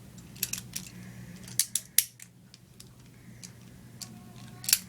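A string of sharp metal clicks, irregularly spaced, from a key working an antique Corbin Ironclad six-lever padlock as it is turned and opened, the loudest about two seconds in and just before the end.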